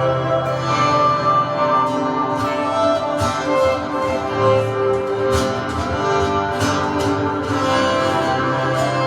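Live instrumental worship music with no singing: sustained chords ring on, with occasional light struck accents.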